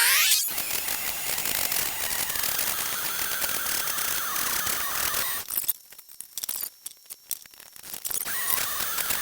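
A small rotary tool with a carbide deburring burr spins down and stops about half a second in. Scraping and handling noise on the metal part follows, then a quieter spell of light clicks, then the scraping resumes near the end.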